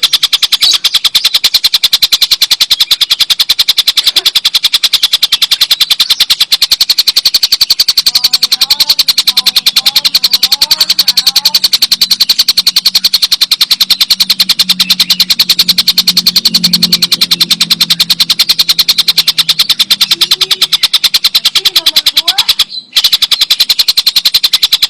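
Tengkek buto kingfisher giving its long, rapid rattling cackle (ngekek): a fast, even run of sharp, high notes that breaks off briefly near the end.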